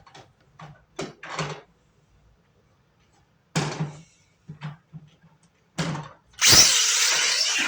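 Radio-controlled drag truck's electric motor whining in several short throttle blips, then a loud full-throttle burst of about a second near the end as the truck launches down the track.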